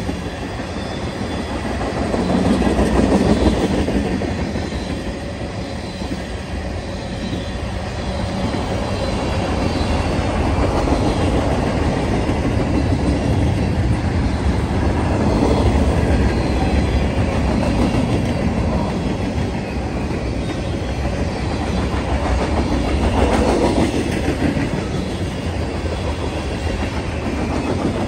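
Freight train's cars rolling past on the near track: a continuous rumble of steel wheels on the rails that swells and eases as the cars go by, loudest about three seconds in and again near the end.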